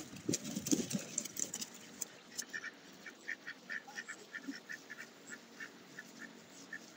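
Duck quacking in the first second or so, then ducklings peeping: a long run of short, high peeps, several a second.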